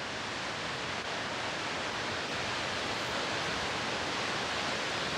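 Steady, even rush of the Spahats Falls waterfall.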